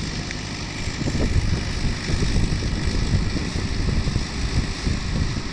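Steady running of machinery, with a constant hum and an uneven low rumble underneath.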